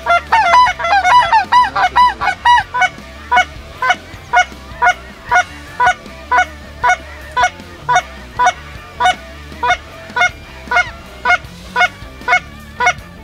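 Goose honking. The first few seconds hold several overlapping honks, then a steady run of single honks, about two a second.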